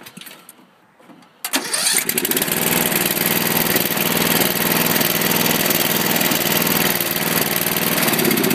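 Riding mower's Briggs & Stratton Power Built 12.5 hp engine starting up suddenly about a second and a half in, then running steadily.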